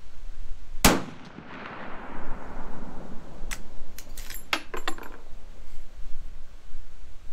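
One shot from a Marlin 336 lever-action rifle in .30-30 Winchester about a second in, its echo rolling away over the next couple of seconds. From about three and a half seconds in comes a quick run of sharp metallic clicks and clinks as the lever is worked and the spent brass case is ejected onto the bench.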